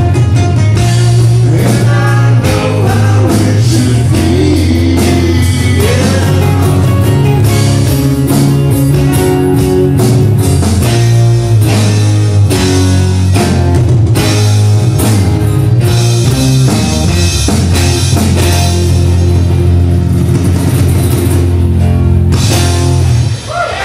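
Live acoustic rock band playing: strummed acoustic guitars and bass over a drum beat, loud and steady, breaking off briefly just before the end.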